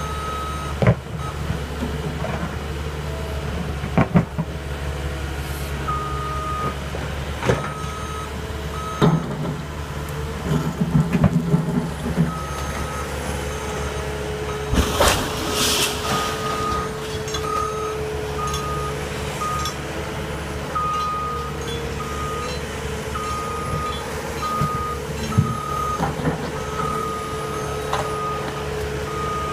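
Hydraulic excavator running steadily while it knocks down a brick chimney, with scattered sharp knocks and a louder crash of falling brickwork about halfway. A backup alarm beeps on and off.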